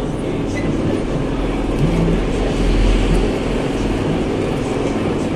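Metal lathe running steadily while turning a steel sliding-gate wheel, a continuous machine hum with a steady whine that swells slightly about three seconds in.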